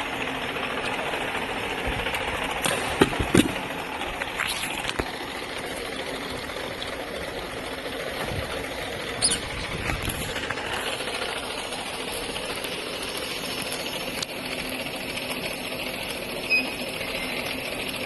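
Packaging-line machinery for a can vacuum leak tester running steadily, with a few sharp knocks: two close together about three seconds in, one about nine seconds in and one near the end.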